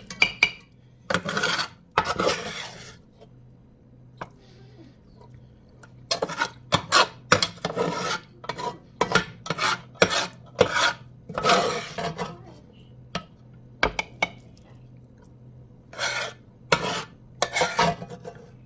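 A metal spatula and spoon scraping and knocking against a cast-iron skillet as food is scraped out of it. The scrapes come in quick runs with short pauses, the longest run in the middle.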